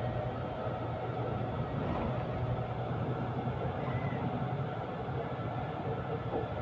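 Steady rumble of a moving vehicle heard from inside as it travels, with a low hum and no distinct knocks or breaks.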